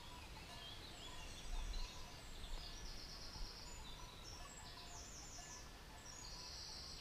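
Songbirds singing in woodland: a series of short, high, fast trills at several different pitches over a faint low rumble.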